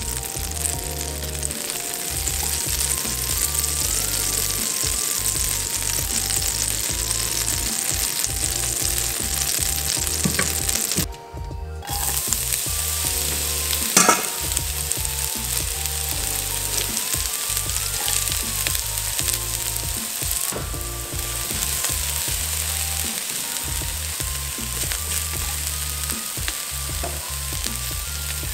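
Hot oil sizzling steadily in a nonstick wok, with sliced spring onions frying in it in the second half. The sizzle breaks off for about a second just before halfway, and there is a single sharp knock soon after; a soft background melody plays under it.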